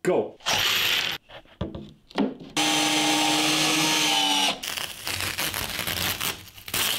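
Cordless drill driver running screws into wooden French cleat strips on a wall: short runs of the motor, the longest a steady whine lasting about two seconds in the middle.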